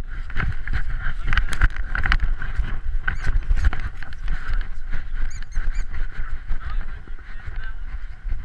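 Rubbing, scraping and knocking of a GoPro Hero 3 Black in its housing, mounted on cardboard under a small dog's harness, jostled as the puppy moves through dry grass and leaves, over a constant low rumble. A few faint high chirps about five seconds in.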